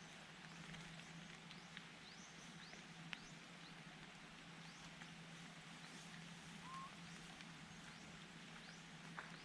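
Very faint outdoor ambience: scattered short, high, falling chirps over a steady low hum, with a few soft clicks.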